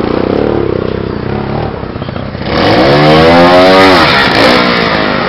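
Trials motorcycle engine running, then revved hard about halfway through as the bike is lifted onto a rock: the note rises and falls again over about two seconds.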